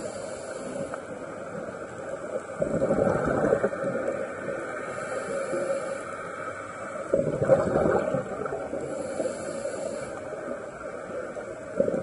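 Underwater recording of a scuba diver breathing: a steady hiss of water noise with a bubbling swell about every four to five seconds as the exhaled breath leaves the regulator.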